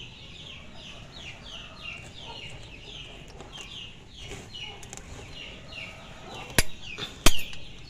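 Chicks peeping in quick, repeated falling chirps. Near the end come two sharp metallic clicks from a steel pick prying at the lock ring on a car AC compressor's magnetic clutch hub.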